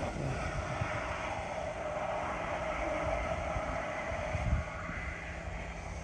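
Water spraying under mains pressure from a leaking joint in a buried black plastic water supply pipe, a steady hissing spray.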